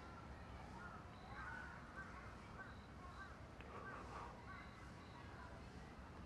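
Faint birds calling in the background: a steady run of short chirping calls with a few thin higher peeps, over a low steady background hum.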